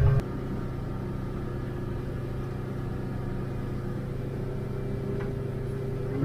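Small boat's engine running at a steady speed underway, a constant low hum heard from inside the pilothouse cabin.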